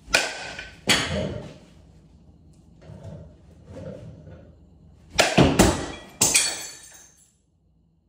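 Softball bat cracking a ball off a tee, followed by a second sharp impact about a second later. About five seconds in comes another hit, then a cluster of loud crashes with bright ringing as the ball strikes the ceiling and breaks a garage door window's glass. The sound cuts off abruptly soon after.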